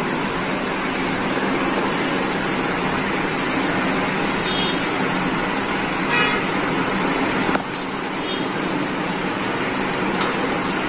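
Steady street traffic noise, with a few short, high horn toots about four, six and eight seconds in.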